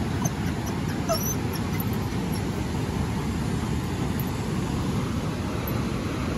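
Steady low rush of the Saint Lawrence River rapids, with a Bedlington terrier–whippet cross dog giving a brief, faint whimper about a second in.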